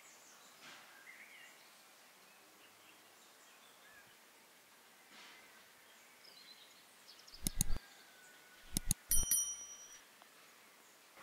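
Subscribe-button sound effect: a pair of mouse clicks about seven seconds in, then more clicks and a short bell ding, over a faint outdoor background with birds chirping.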